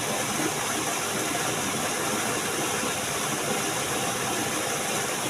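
Steady rushing noise of flowing stream water, even and unbroken.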